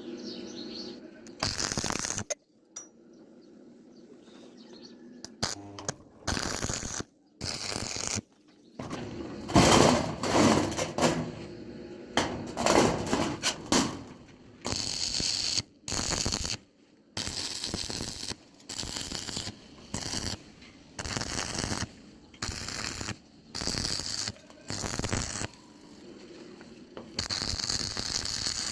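Workshop metalworking noise in many short bursts that start and stop abruptly, the loudest and fullest about halfway through, then a run of evenly spaced short bursts to the end.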